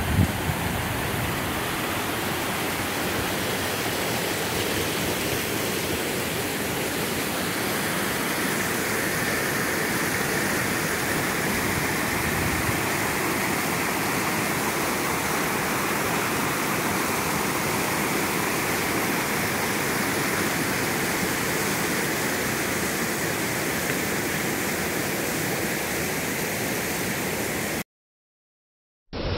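Water rushing over a small rocky waterfall into a pool: a steady, even rush that breaks off for about a second near the end.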